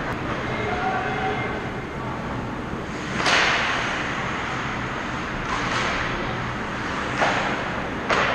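Ice hockey skate blades scraping the ice in four short swishes, the first about three seconds in and the loudest, over the steady background noise of an indoor rink.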